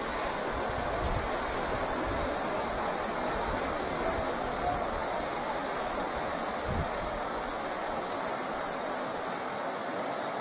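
River rapids rushing steadily over rocks, with irregular low rumbles now and then.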